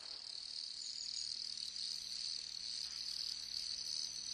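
Quiet, steady high-pitched chirring of insects, a summer field ambience.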